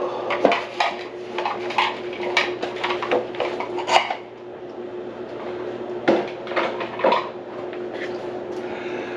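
Hard objects clattering and clinking in a plugged kitchen sink: a quick run of knocks and clinks in the first four seconds, then two more about six and seven seconds in, over a steady low hum.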